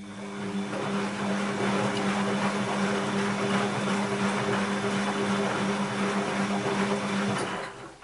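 Bosch WAB28220 washing machine running with water and laundry in the drum: a steady machine hum over a dense rushing, water-like noise. It comes on suddenly and cuts off after about seven and a half seconds.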